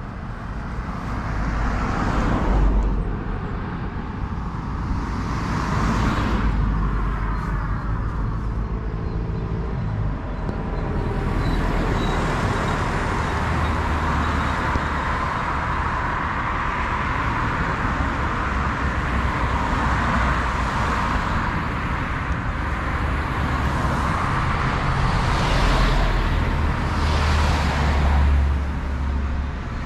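Road traffic: a steady roar of cars, with several vehicles swelling louder and fading as they pass.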